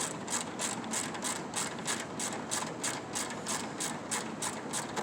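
Hand ratchet wrench clicking steadily, about four to five clicks a second, as it turns out the 10 mm bolts holding the radiator.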